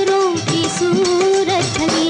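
Hindi film song: female voices singing a held, slightly wavering melody over harmonium and a steady hand-drum beat.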